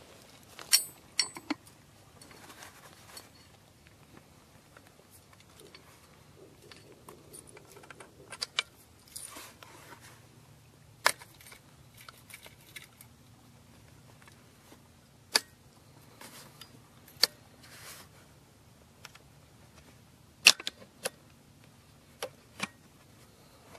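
Parts of a recoilless rifle being handled and fitted together: scattered sharp metal clicks and clacks every few seconds, with faint rustling between.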